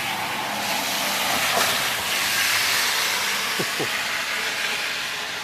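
A vehicle passing by, heard as a broad rushing hiss that swells to its loudest midway and then fades.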